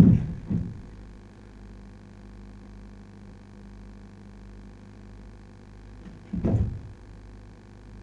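A dancer's body thudding onto a wooden stage floor twice as he rolls over, then a steady low hum, with another dull knocking and scuffling on the floor about six and a half seconds in.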